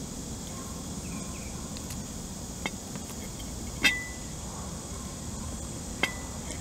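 Three sharp clicks of eggshell and fingers against a porcelain plate as a hard-boiled duck egg is peeled over it, the middle one loudest, the last two with a brief ring, over a steady faint hiss.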